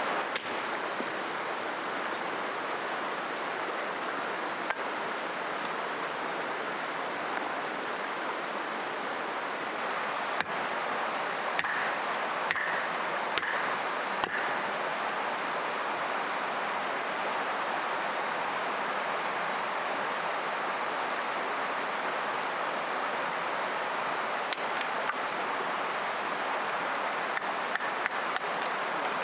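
Steady rushing of a flowing river, with scattered short sharp clicks and pops, most of them in the middle and near the end.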